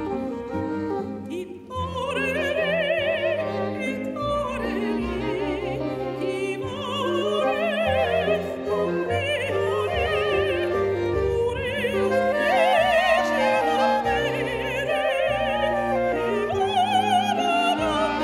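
A soprano soloist sings in operatic style with a wide vibrato over a chamber orchestra of strings and woodwinds. The voice comes in about two seconds in, after a short dip in the music, and carries on in long held phrases.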